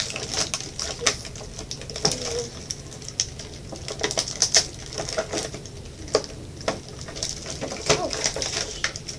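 Clear plastic toy packaging crinkling and crackling as it is handled and pulled open, with many sharp crackles.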